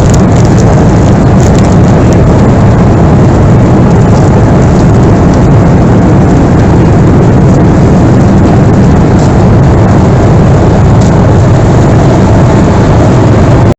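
Loud, steady noise of a Boeing 737-300's CFM56-3 jet engines and rushing air, heard inside the cabin.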